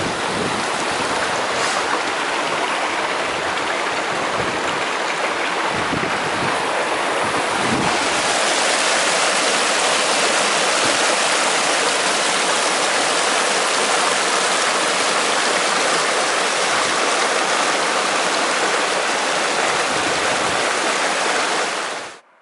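Rushing mountain creek water, a steady wash of noise that becomes brighter and louder about eight seconds in, where it pours down a narrow rock chute. It cuts off abruptly near the end.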